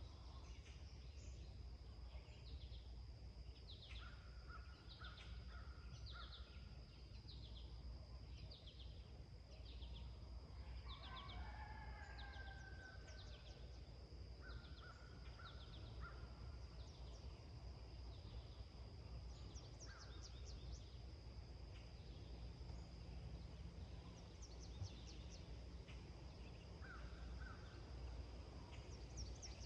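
Faint dawn birdsong: one bird repeats a short, high falling chirp about once a second while other birds call now and then at a lower pitch, over a steady high whine and a low rumble.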